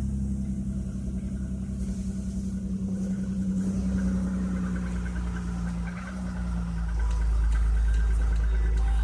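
Audi A6 C4's 2.6-litre V6 idling just after a cold start, with a fast, even knock ticking through the idle from about three seconds in. About six seconds in, the idle drops a little and the low rumble gets louder.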